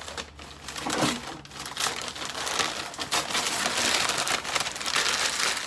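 Newspaper wrapping crinkling and rustling as it is pulled apart and torn open from around a potted plant, the crackle growing denser in the second half.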